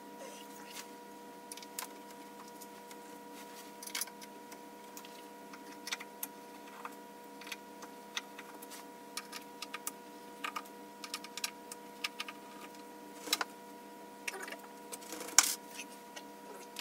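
Scattered small clicks, taps and rattles of hands handling parts and wiring inside the open cabinet of a rear-projection TV, with a sharper knock about fifteen seconds in, over a steady faint hum.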